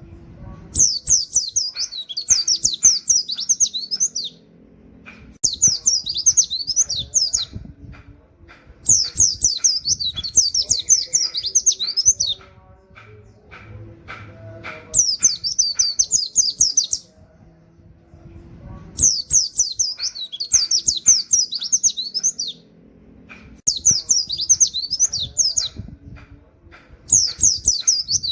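White-eye (pleci) singing at full song in repeated bursts of fast, high, canary-like 'wit wit' phrases. There are about seven bursts, each lasting two to four seconds, with short pauses between, and faint ticks underneath.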